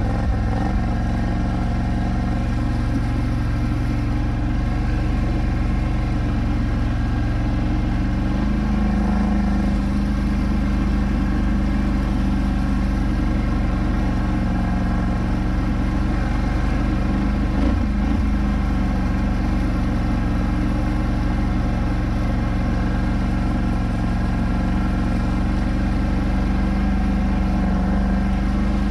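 Polaris Scrambler 1000 ATV engine running under steady throttle while the quad wades through deep water, with water spraying around it. The engine pitch stays fairly even, lifting slightly a few times.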